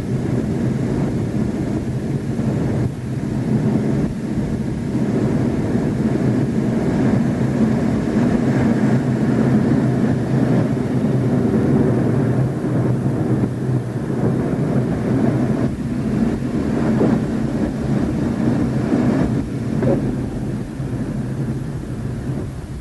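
Steady low roar of a MiG-29's twin jet engines and rushing air, heard inside the cockpit in flight.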